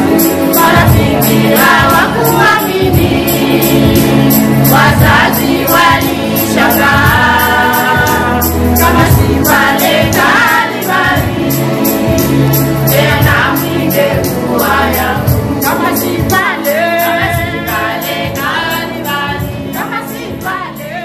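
Gospel music: a choir singing over a steady beat, fading down toward the end.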